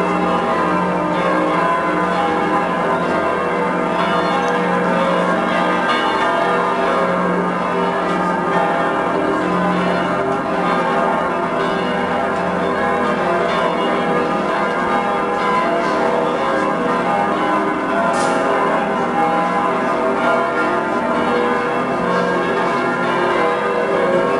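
The bells of Munich's Frauenkirche cathedral ringing together in a peal: many overlapping deep tones that sound without a pause.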